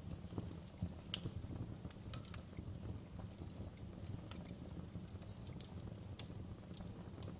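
Wood fire burning in a fireplace, crackling with irregular sharp pops and snaps over a low, steady rumble of the flames.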